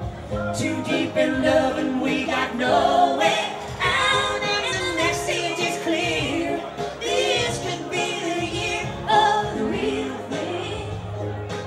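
Live pop music with a band: a woman sings the lead into a handheld microphone, and a man's voice sings alongside her.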